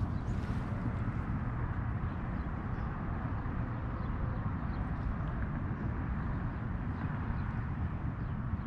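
Steady outdoor background noise, mostly a low rumble, with a few faint ticks.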